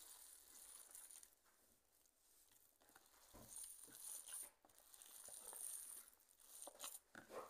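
Faint, soft squishing and rustling of a hand kneading raw kibe mixture of ground meat and bulgur wheat in a plastic bowl, with a few small knocks.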